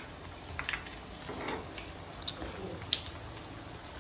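Quiet kitchen background with several light clicks and taps scattered through it.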